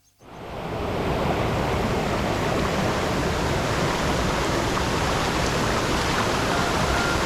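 Valley stream rushing over rocks: a steady, dense wash of water noise that fades in over the first second and then holds even.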